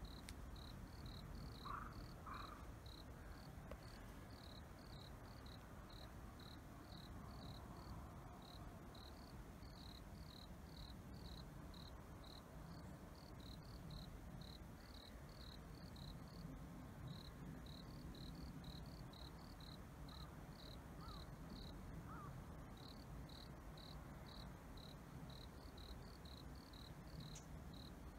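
Faint, steady cricket chirping: short high chirps repeating at about two a second, over a low background rumble.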